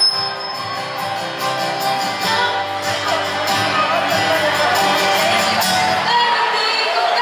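Pop song played loud through a PA system in a large hall, with a woman singing live over the backing track.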